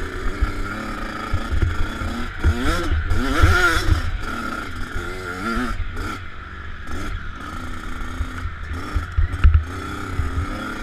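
Dirt bike engine on a motocross track, revving up and dropping back again and again as the rider shifts through the gears, heard from a helmet camera with rushing wind noise and occasional thumps over the rough ground.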